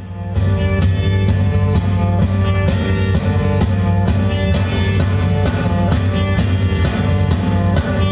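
Rock music with guitar and drums, played loud from a vinyl record on a Technics SL-D30 direct-drive turntable through the stereo receiver and speakers, with a steady beat: the turntable and needle now tracking and playing.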